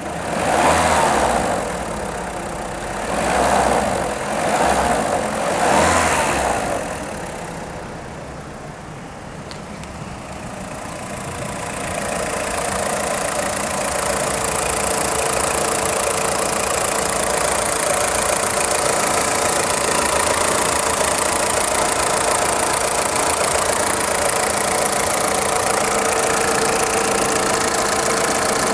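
VW Polo 6N2 1.4 16V four-cylinder petrol engine revved in four short blips, then settling and running at a steady idle, louder from about twelve seconds in. At idle it makes the clacking from the engine block that the owner hears, a noise that stops when the engine is accelerated.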